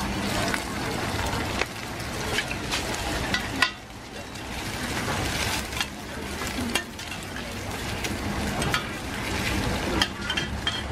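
Egg and oysters frying in a shallow pool of oil in a large steel wok, sizzling steadily, with metal spatulas scraping and clinking against the pan. A sharp clink about three and a half seconds in is followed by a brief drop in the sizzle, which then builds again.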